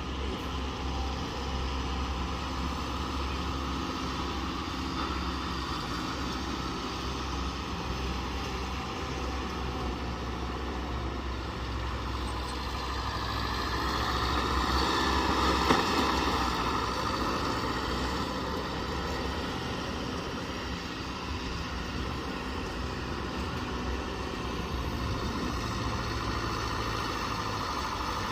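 Diesel engine of heavy earthmoving machinery running steadily, growing louder for a few seconds around the middle with one sharp click at the peak, then settling back to a steady run.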